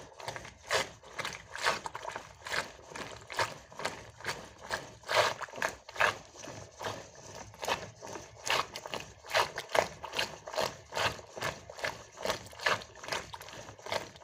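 Wooden churning stick (madani) spun back and forth by a rope in a pot of curd, making a rhythmic churning sound of about two to three strokes a second. Butter is separating from the buttermilk.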